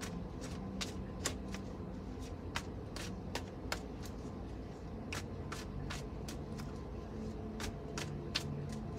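Quiet background music of low held tones, with light sharp clicks scattered through it about two or three times a second.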